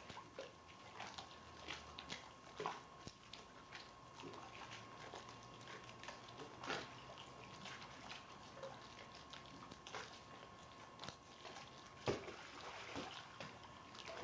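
Water in a swimming pool splashing and lapping irregularly as swimmers move and play, in many small splashes and drips, with a sharper splash about twelve seconds in.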